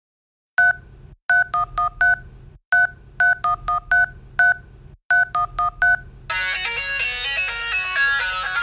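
Intro music that opens with short electronic two-tone beeps like touch-tone telephone tones, played in a rhythmic pattern. About six seconds in, fuller music with plucked-string notes like guitar takes over.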